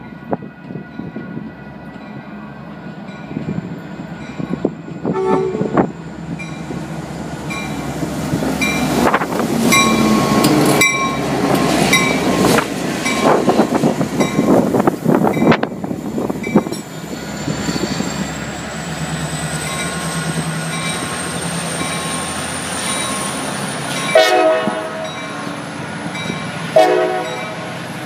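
Metra push-pull commuter train running into the station: a short horn blast, then the bilevel cars rumbling past with wheels clacking over rail joints. From about halfway a thin high whine rises slowly in pitch as the train slows, and two short horn toots sound near the end.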